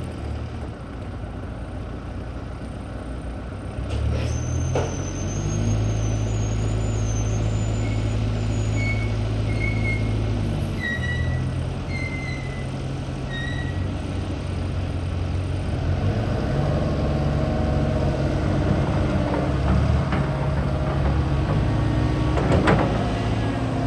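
Volvo EC160DL excavator's diesel engine running under hydraulic load as the machine is operated, its revs and load stepping up about four seconds in and again around sixteen seconds. Short high squeals come and go in the middle, and a sharp knock sounds near the end.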